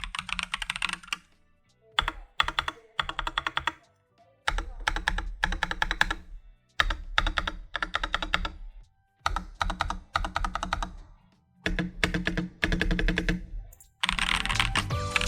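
Stabilized large keys of an AKKO 3087 RF mechanical keyboard being hammered in quick bursts of clacks, each run lasting a second or two with short pauses between, as a stabilizer test. Near the end the keystrokes run on without a break.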